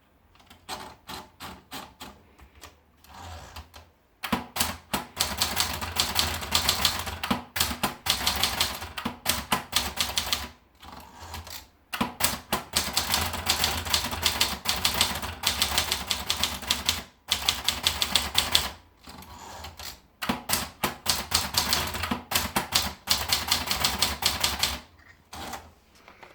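Adler Tippa portable typewriter being typed on. A few separate keystrokes come first, then long runs of fast clattering keystrokes with brief pauses between them.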